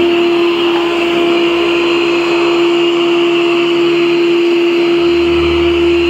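Yeedi Vac Max robot vacuum running, its suction fan giving a steady whine over an even rushing hiss.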